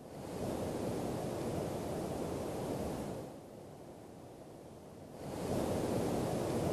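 Wind gusting in two surges, each lasting about three seconds, with a short lull between them.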